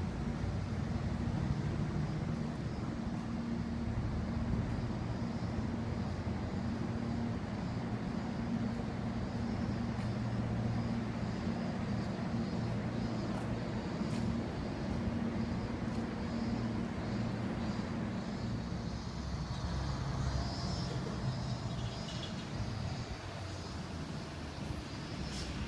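A vehicle running with a steady low hum, over even outdoor background noise.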